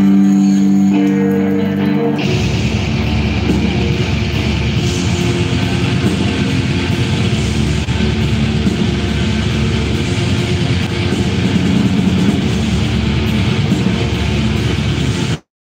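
Live black metal band: held guitar notes ring for about two seconds, then the full band comes in at once with distorted guitars and drums in a dense, loud wall of sound. The audio cuts out abruptly just before the end.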